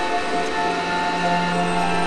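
Background music of long held chords.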